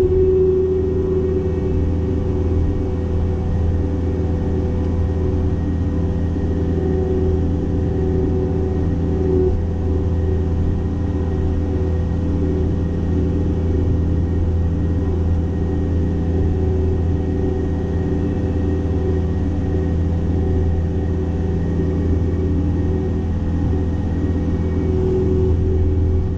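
Cat 262D skid steer's diesel engine running steadily under load while driving a hydraulic open-front brush cutter: a constant low drone with a higher steady hum that fades in the middle and comes back near the end.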